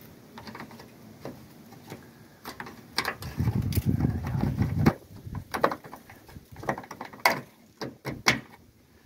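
Plastic headlight assembly being forced into its mounting with a screwdriver: a run of clicks, knocks and scrapes, with a rough rumbling scrape in the middle and a few sharp, loud clicks near the end as the plastic is strained.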